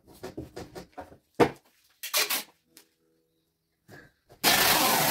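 Light knocks and taps of hands working on a cardboard box, then a loud, even screech of about a second near the end as packing tape is pulled off the roll.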